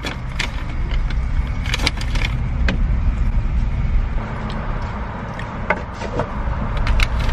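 Steady low rumble inside a car with its engine running, with scattered short crinkles and clicks from a paper fast-food bag being handled.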